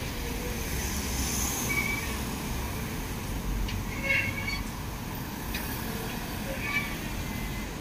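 Street traffic: a steady low rumble of cars, vans and a motorcycle driving past, with a few short high chirps on top.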